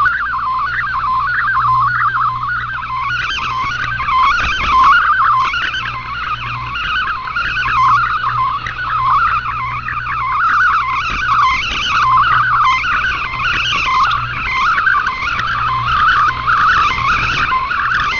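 Shortwave radio receiving a digital text-mode data transmission: a fast, continuous warble of tones hopping between about 1 and 2 kHz, over a steady low hum.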